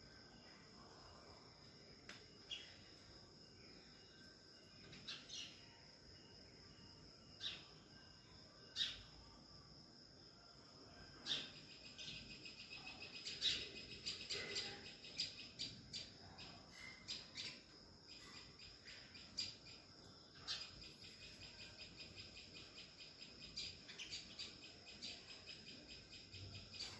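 Faint outdoor chirping of wild birds and insects. A steady high-pitched hum runs under scattered sharp chirps, which become rapid chirping trills about eleven seconds in and again about twenty seconds in.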